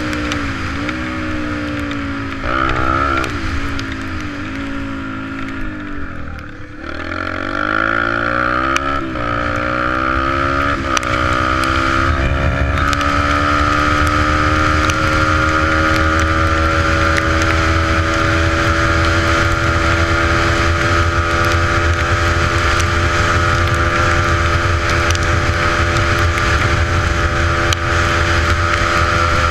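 Yamaha 125 dirt bike engine under way: its pitch drops and climbs several times in the first dozen seconds as the throttle is eased and opened, then holds at steady high revs. Wind rumbles on the rider-mounted microphone underneath.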